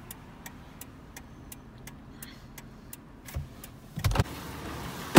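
Toyota 4Runner's turn-signal flasher ticking steadily, about three clicks a second, heard inside the cab. Near the end come a few thuds and a loud bang as the driver's door is shut.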